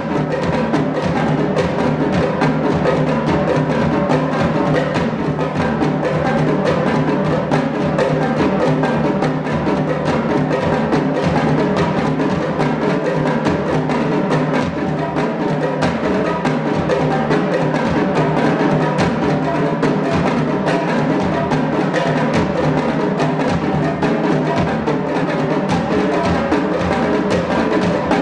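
Solo multipercussion performance on drums and toms: a dense, unbroken run of rapid strokes at an even loudness.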